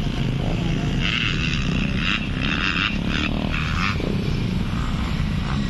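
Dirt bike engines running as a steady drone, with a higher rasping sound coming and going from about one to four seconds in.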